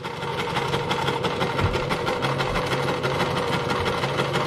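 Brother household sewing machine running steadily, stitching a hem through heavy outdoor sling-chair fabric, with a rapid, even patter of needle strokes.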